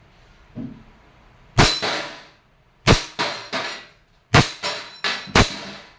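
WE M92 gas blowback airsoft pistol firing on green gas: several sharp shots in quick succession starting about one and a half seconds in, with the clank of BBs striking the metal spinner target.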